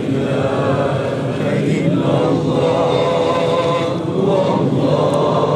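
Mosque congregation of men chanting together in unison, one slow, continuous religious chant of many voices.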